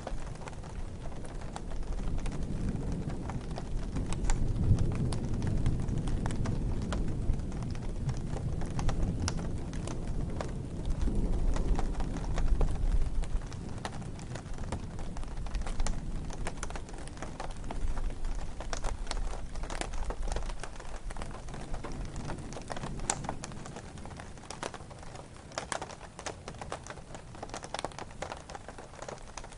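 Steady rain with many individual drops tapping sharply. A low rumble swells through the first half and fades away.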